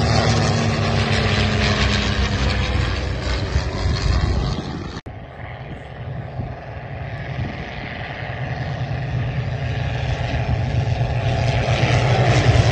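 Fiat G.46 trainers' Alfa Romeo 115-ter inverted inline-six piston engines and propellers droning as the aircraft fly past. The pitch falls slightly in the first few seconds. About five seconds in the sound cuts off sharply to a fainter drone, which then grows louder again as the pair approaches.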